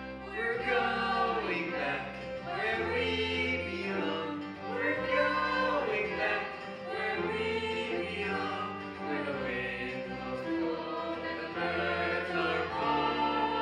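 Musical theatre show music with a choir singing in long, sweeping phrases.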